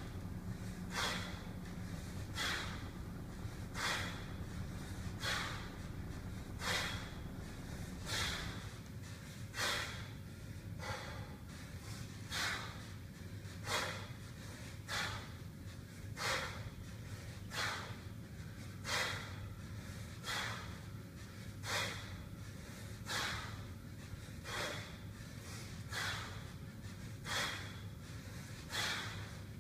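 A person's forceful breaths, short and noisy, repeating steadily about once every second and a half in time with repeated kettlebell cleans.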